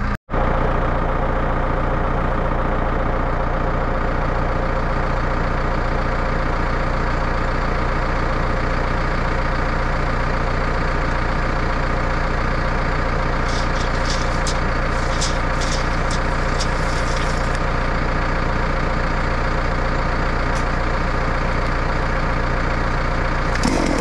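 An engine running steadily at idle, with a cluster of light clicks near the middle. Just before the end a chainsaw starts up.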